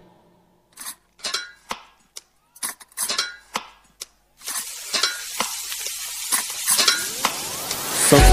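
Music cuts off abruptly. A quiet gap follows with scattered short, sharp clinks and jingles. From about halfway a steady noisy din sets in and swells toward the end.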